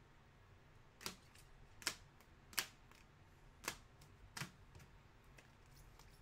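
Rigid plastic card holders clacking against one another as a stack of sports cards is flipped through by hand. There are five sharp clicks at uneven intervals, with a few fainter ticks between them.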